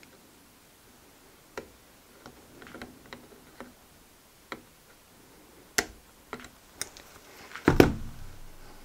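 Scattered small metallic clicks and ticks as long-nose pliers handle small parts on the rocker gear of a miniature V6 model engine, then a louder clunk near the end as the pliers are set down on the bench.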